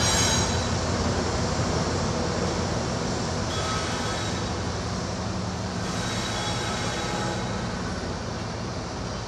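A pair of CN GE ET44AC diesel locomotives running with their V12 engines working as the freight rolls away, the engine sound and rail noise fading gradually.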